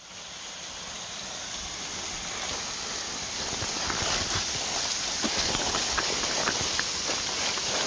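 Small waterfall splashing over a rock ledge, a steady rushing hiss growing louder over the first few seconds, with light footsteps in dry leaves.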